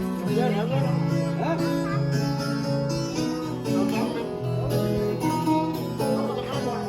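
Live acoustic country music: plucked acoustic guitar strings playing an instrumental passage between sung verses.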